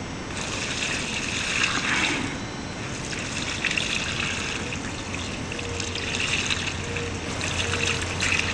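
A thin stream of liquid poured from a plastic bowl, splashing and trickling onto low leafy plants on the ground. The pour begins about half a second in, is strongest for the next couple of seconds, then keeps running more unevenly.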